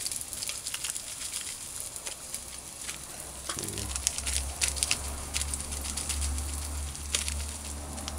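Curry powder crackling and sizzling in a hot pot, with many sharp irregular ticks, as the curry is burned in the pot. A steady low hum grows stronger about three and a half seconds in.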